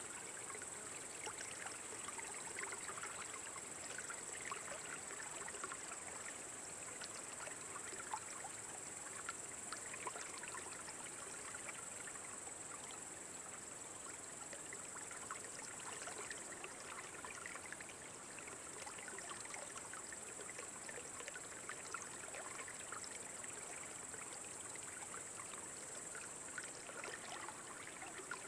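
Steady trickling water noise with many small crackles throughout.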